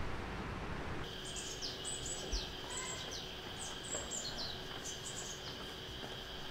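Small birds chirping, from about a second in: many short, high notes that drop in pitch, over faint street background with a steady high tone.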